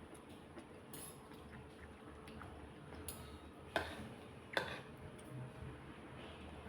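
Eating sounds close to the microphone: soft clicks and smacks while chewing cooked vegetables. Two sharper clicks come a little under a second apart, past the middle.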